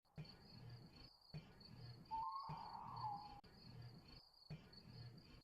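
Faint night ambience of crickets chirping steadily, with one short call about two seconds in that drops in pitch at its end, cut off abruptly several times.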